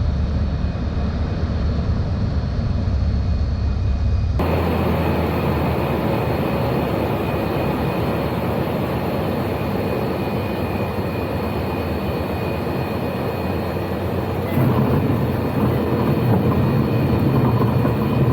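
Cabin noise of a Cessna 152's four-cylinder Lycoming engine and propeller, a steady loud drone. The sound changes abruptly about four seconds in and grows louder and deeper from about fifteen seconds in.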